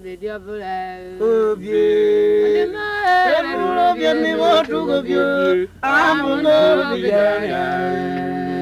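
Several voices singing unaccompanied in overlapping parts, with sliding and held notes, settling about seven and a half seconds in on a long held chord.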